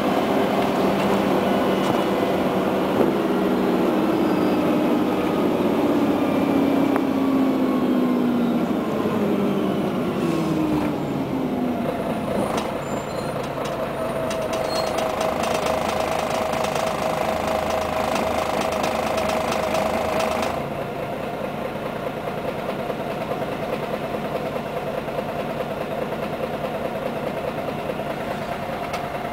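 Inside a 1999 Scania CN113CLL city bus: the engine and drivetrain whine falls steadily in pitch as the bus slows in traffic. It then settles into a steady hum, which drops quieter about two-thirds of the way through as the bus comes to a halt and idles.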